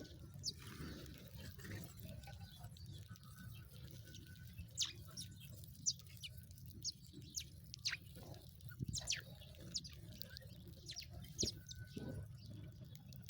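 Sparrows chirping: short, sharp, high chirps that drop quickly in pitch, coming in irregular scattered runs, over a steady low rumble.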